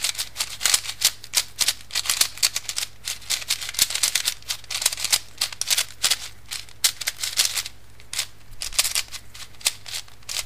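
A new MoYu Mini Aosu 4x4 speed cube being turned rapidly by hand: a dense, unbroken run of plastic clicks and clacks from its layers. The cube is unlubricated and dry out of the box.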